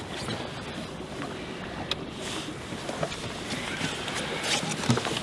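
Wind and water noise around a small aluminium fishing boat, with a few light knocks, the loudest a thump near the end.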